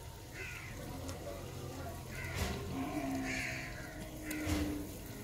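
Crows cawing about three times, with a few sharp clicks of a knife slicing a tomato over a clay cooking pot.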